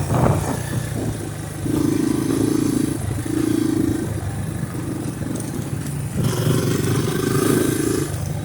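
A motor vehicle's engine running steadily, pulling harder in spells about two, three and six seconds in, with wind buffeting the microphone.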